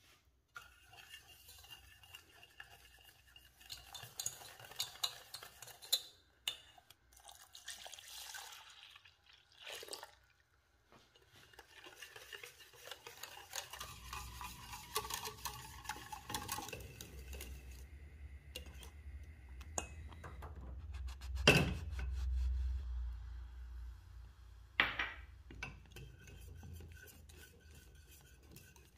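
A kitchen utensil stirring, scraping and clinking against a stainless steel saucepan while mixing the custard cream ingredients. A low rumble joins about halfway through, and two sharp knocks on the pan stand out later.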